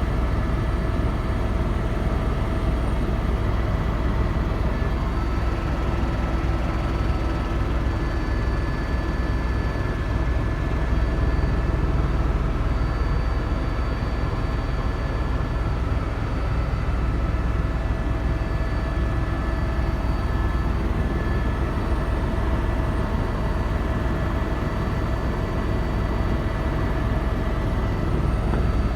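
Helicopter in flight: a steady, heavy low drone of rotor and engine that never lets up, with faint thin whining tones held above it.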